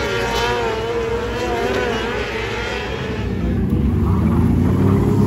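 600 mini sprint cars racing on dirt, their high-revving motorcycle engines heard as several engine notes rising and falling together. About three seconds in, a lower, louder engine note comes in and builds.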